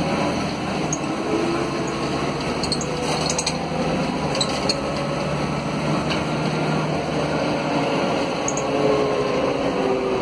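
Cabin sound of a Mercedes-Benz O500 UA articulated bus with its OM457LA diesel engine and ZF automatic gearbox running: a steady drone with a faint tone that slides down in pitch near the end. A few light clinking rattles come a few seconds in.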